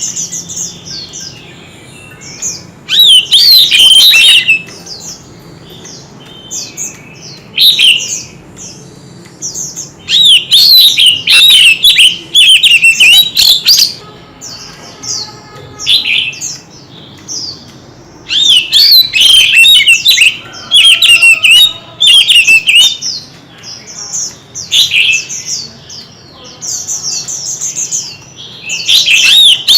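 White-rumped shama singing a loud, varied song of fast whistled phrases in repeated bouts with short pauses between them, a bird in full, fired-up contest song.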